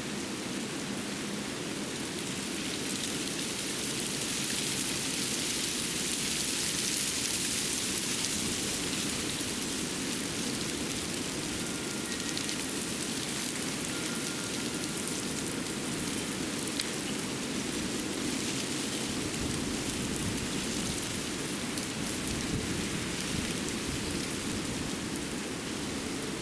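Winter forest ambience: a steady rushing hiss that swells a few seconds in and then settles.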